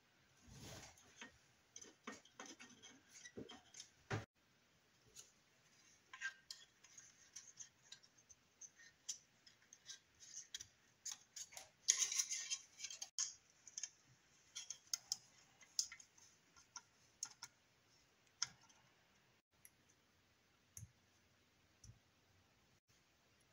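Small plastic-and-metal clicks and taps as 1/24 scale model kit parts are handled: plastic wheels, a thin metal axle and the plastic chassis. The clicks come irregularly, busiest about halfway through.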